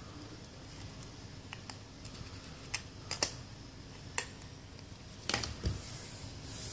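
Scattered sharp clicks and plastic crackles as a snap-off utility knife cuts around the base of a thin plastic bottle. Near the end comes a quick cluster of clicks and a dull knock.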